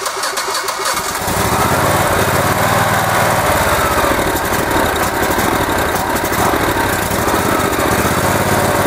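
Generac GP15000E generator's V-twin engine, newly converted to propane, turns over on the electric starter and catches about a second in. It then keeps running steadily, its pitch wavering a little as the propane load block is adjusted.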